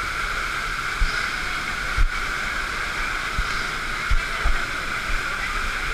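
Steady rush of a waterfall close by, with a few short, dull low thumps about a second apart in the first half.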